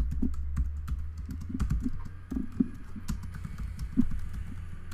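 Typing on a computer keyboard: quick, irregular keystrokes over a steady low hum.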